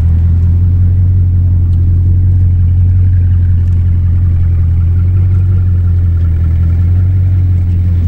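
Bugatti Chiron's quad-turbocharged 8.0-litre W16 engine running at low revs as the car rolls slowly away, a loud, steady, deep drone with no revving.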